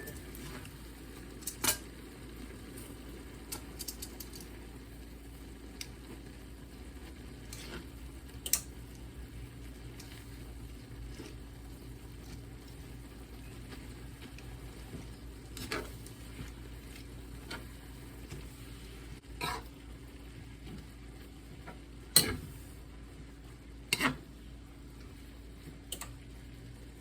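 Cooking utensil knocking and scraping against a pan while noodles are stirred and tossed: scattered sharp clacks, the loudest about two-thirds of the way through, over a steady low hum.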